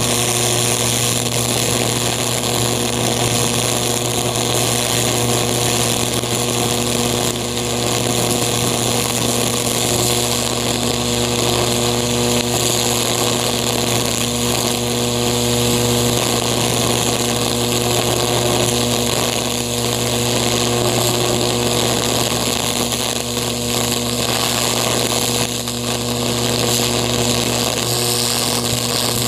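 High-voltage electric arc from a metal needle electrode burning into a pumpkin's flesh: a steady, loud electrical buzz with a hiss over it.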